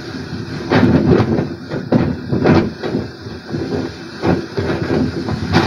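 Hurricane storm surf and wind: a loud rushing noise that swells in uneven surges as waves break, played through a TV speaker and picked up by a phone.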